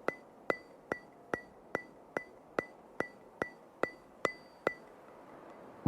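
A steady run of sharp ticks, about two and a half a second, each with a short bright ring. They stop a little before the end.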